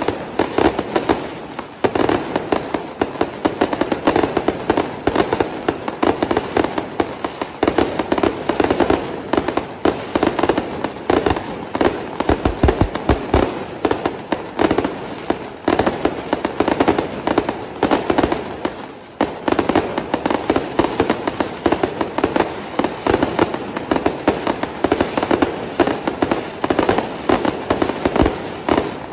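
Fireworks barrage from multi-shot aerial cakes fired in a street: a dense, unbroken crackle of many bursts and pops, with a few deeper thuds, easing briefly about two-thirds of the way in.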